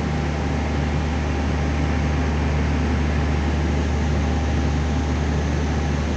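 Steady city background noise: an even rushing sound with a constant low hum beneath it, from traffic and machinery.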